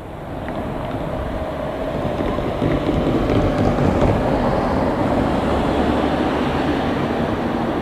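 Diesel locomotive running as it slowly approaches. Its engine and rail noise grow louder over the first three seconds, then hold steady.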